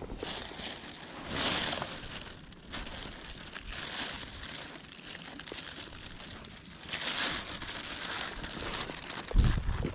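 Plastic rubbish bag rustling and crinkling in several bursts, with a dull low thump near the end.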